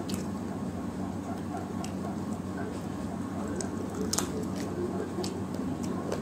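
A person eating rice and curry by hand close to the microphone: wet chewing and sharp mouth clicks, the loudest about four seconds in, over a steady low hum.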